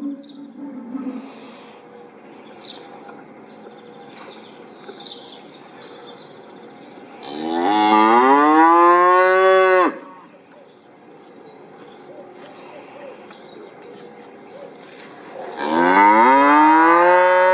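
A cow mooing twice: two long calls of about two and a half seconds each, several seconds apart, each rising and then falling in pitch. Faint, short, high chirps sound between the calls.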